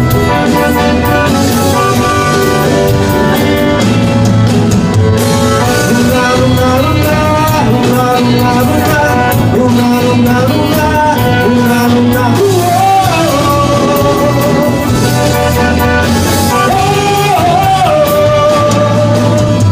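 Instrumental passage of a Brazilian romantic song: a melodic lead line over bass and a steady beat, with sliding notes in the melody about two-thirds of the way through and again near the end.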